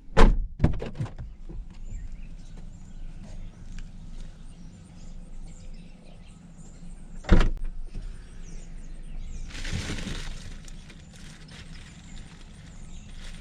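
Car door shutting with two heavy thumps about seven seconds apart. A few lighter clicks follow the first thump, and a second of rustling comes near the end over a low hum.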